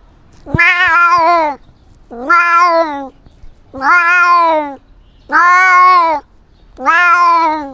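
A cat meowing five times in a row, long drawn-out meows of about a second each, evenly spaced and steady in pitch.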